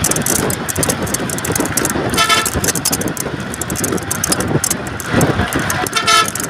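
Steady road and wind noise of a vehicle driving at speed, with a vehicle horn tooting briefly twice, about two seconds in and again near the end.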